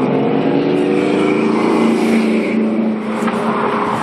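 Steady machine-like drone with a low hum, easing off about three seconds in.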